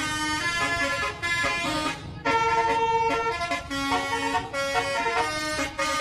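A bus's telolet horn, a multi-tone air horn, playing a melody: a run of held notes that step up and down in pitch, with a brief break about two seconds in.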